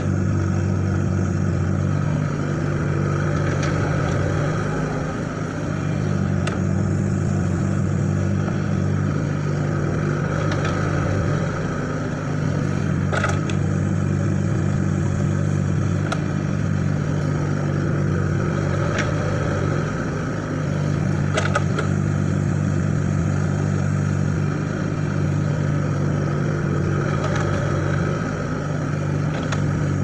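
Hitachi mini excavator's diesel engine running steadily, with a few short knocks in the middle.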